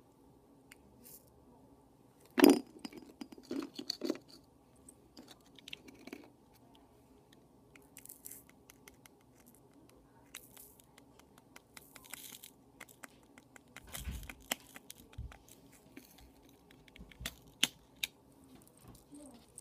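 A tiny glass vial and a small clear plastic container being handled on a wooden tabletop: scattered clicks, taps and light scrapes, the sharpest click about two and a half seconds in, with a few brief rustles and a soft knock later on.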